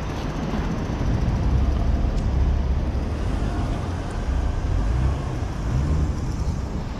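Low rumble of a road vehicle, swelling about a second in, with a brief rise and fall in pitch near the end.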